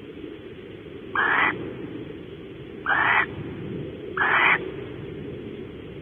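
Barn owl calling: three short, harsh screeches, each under half a second, spaced one to two seconds apart, over a steady low background noise.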